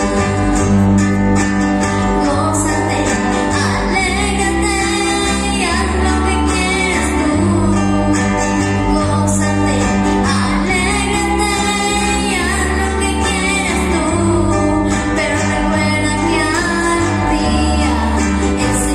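Live band music through a PA: two acoustic guitars and a bass guitar accompany a girl singing into a microphone, with steady bass notes that change every second or two.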